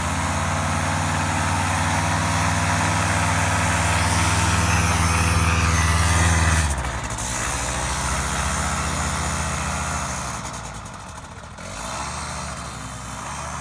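Paramotor trike's engine and propeller running at takeoff power, a steady drone that grows slightly louder over the first six or so seconds. About halfway through it drops suddenly in level and then wavers in pitch as the trike rolls away on its takeoff run.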